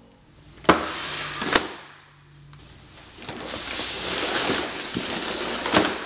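A large cardboard LEGO set box being slid and turned on a tabletop: a scraping hiss of cardboard on the table, with two sharp knocks about a second in and another near the end.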